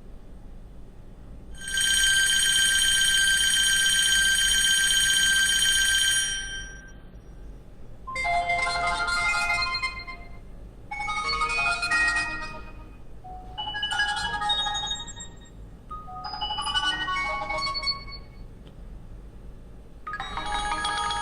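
HTC Desire 610 ringtones played one after another. First comes a steady electronic ring of about five seconds. Then four short chiming melodies of about two seconds each follow with brief pauses between them, and another tune starts near the end.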